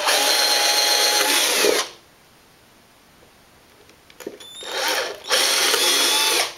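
Cordless drill boring two holes through an OSB shelf board: two steady runs of about two seconds each, the second starting after a short spin-up, with a pause between.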